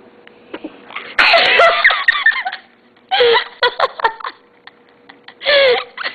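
A young girl sneezes sharply about a second in, followed by bursts of giggling and laughter.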